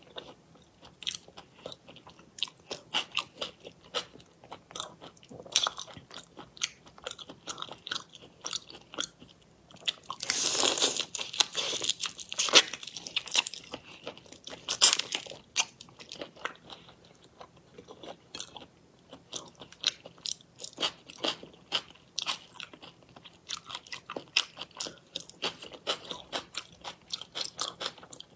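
Close-miked crunching and chewing of whole raw shrimp in soy marinade: many quick crackles and clicks from the shells, with a louder, denser burst of crunching about ten seconds in.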